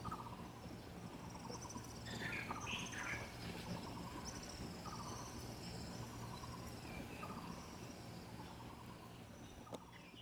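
Cicadas and other insects trilling in short buzzy bursts that repeat every second or so, with a higher pulsing trill above them. Birds call a few times, mostly about two to three seconds in.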